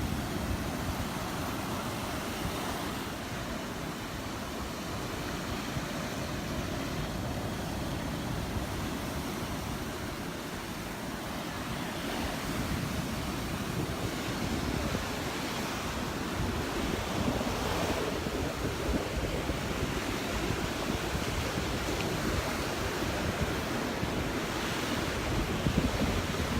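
Gulf surf washing onto the beach, waves breaking and rolling in with gentle rises and falls, with wind buffeting the microphone.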